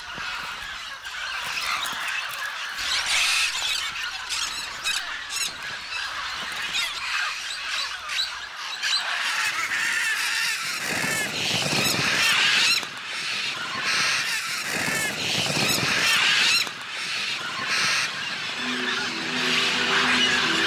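A large flock of macaws squawking and screeching together, a dense chorus of harsh overlapping calls that grows louder and fuller about eleven seconds in as the birds take flight. Music comes in near the end.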